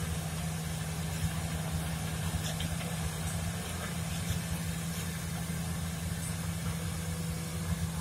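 Diesel engines of a large Volvo excavator and a Volvo dump truck running steadily, a low even hum.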